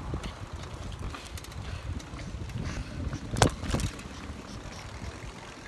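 Rumble and scattered clicks of a handheld phone being carried fast over pavement, with one sharp knock about three and a half seconds in, as the ground underneath changes from sidewalk to road.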